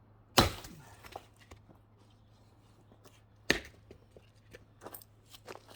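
Two axe blows splitting firewood logs, about three seconds apart, each a sharp wooden crack followed by a few smaller knocks.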